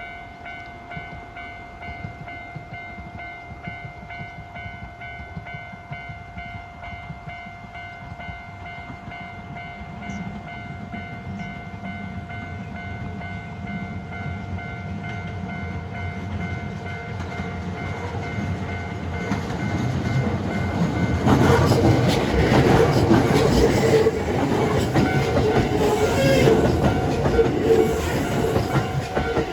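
A level-crossing warning bell rings steadily while a train approaches and grows louder. From about 21 seconds in it passes over the crossing at its loudest, with wheel-on-rail clatter.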